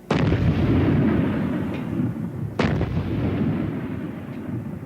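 Two shots from a large naval gun firing live rounds out to sea, about two and a half seconds apart. Each is a sudden report followed by a long rolling rumble that slowly dies away.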